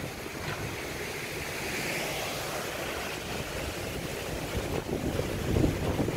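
Gusty wind buffeting the microphone in low, uneven rumbles, with a hissing rush that swells about two seconds in.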